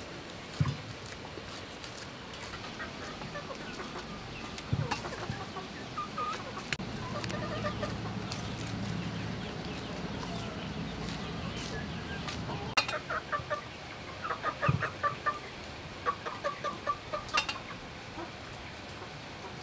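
Chickens clucking, in quick runs of clucks in the second half, with a few sharp knocks and clicks among them.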